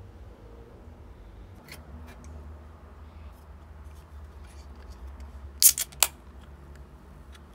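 Light scattered clicks and handling noise, then two loud, sharp clicks close together about five and a half seconds in.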